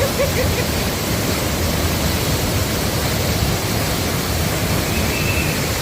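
Meenmutti waterfall: water falling in a steady, loud rush.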